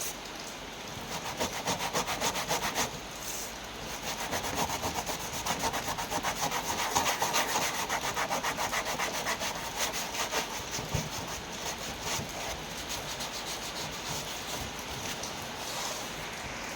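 Rapid, even scraping or rubbing strokes on a hard surface, loudest through the middle and easing off near the end.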